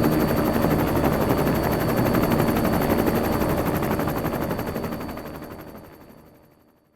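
Helicopter rotor chopping in rapid, even beats with a steady high whine over it, fading out to silence over the last two or three seconds.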